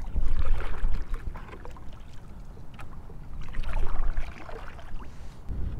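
Kayak paddle strokes in shallow water: two spells of water swishing and splashing, one at the start and one a little over three seconds later.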